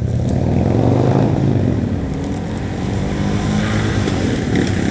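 Motorcycle engine running as it passes, loudest about a second in and then holding steady.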